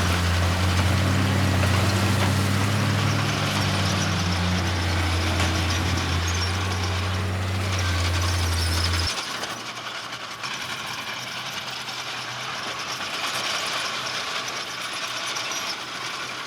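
Heavy diesel engine of earthmoving machinery running steadily under load. About nine seconds in, the engine sound cuts off abruptly, leaving a quieter, higher-pitched noisy sound.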